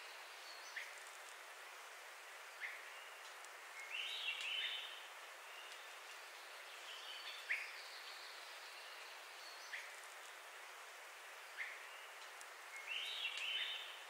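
Forest birds calling over a steady soft hiss: short sharp downward chirps every two seconds or so, and a brief warbled song phrase about four seconds in, again around seven seconds and near the end.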